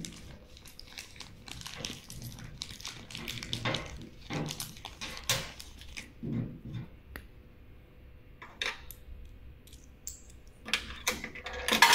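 Coins clinking in the hand and being fed into a coffee vending machine's mechanical coin acceptor, rattling through it. There are many scattered clinks, then a dense cluster near the end.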